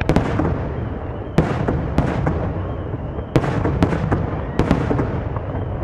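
Aerial firework shells bursting in a display: a string of sharp bangs every second or so, some in quick pairs, over a continuous rumble and echo of the show.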